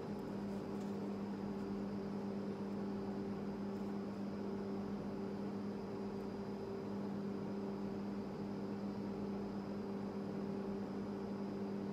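Steady low hum with a fainter higher tone over a light hiss, unchanging throughout: the room tone of a quiet room with an electrical or mechanical appliance running.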